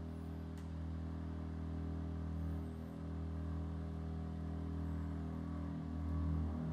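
Double bass bowed on its low strings, a steady sustained drone that dips briefly about three seconds in and swells near the end.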